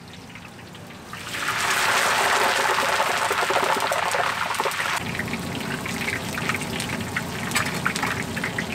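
Blocks of tofu deep-frying in a wok of hot oil. A loud bubbling sizzle starts about a second in as they go into the oil, and after about five seconds it drops to a quieter, steady sizzle with scattered crackles.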